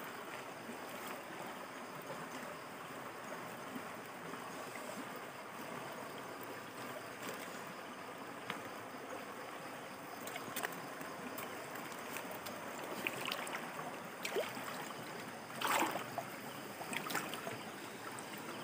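River water flowing steadily past a rocky bank, an even rushing noise. Near the end a few short knocks and clicks stand out, the loudest about three seconds before the end.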